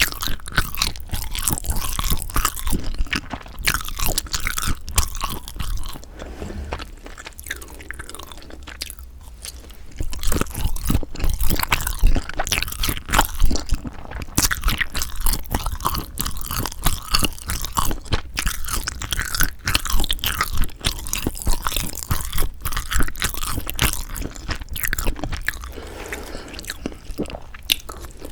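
Close-miked chewing and biting of sundae (Korean blood sausage): a dense run of wet clicks and crunches, quieter for a few seconds about a quarter of the way through before picking up again.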